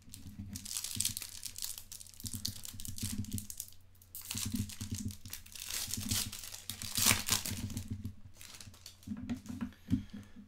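Foil wrapper of a Select Soccer 2016/17 hobby pack being torn open and crinkled by hand, a series of irregular crackling rips, the loudest about seven seconds in.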